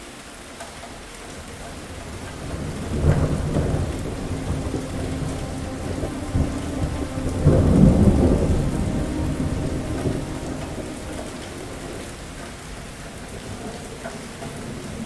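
Thunderstorm: steady heavy rain with thunder rolling over it. A rumble swells about three seconds in, then a louder roll peaks near the middle and fades away slowly.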